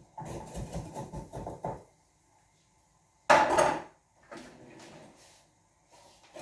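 Kitchen utensils and pans clattering and knocking in a run of short knocks, with one louder clatter about three seconds in.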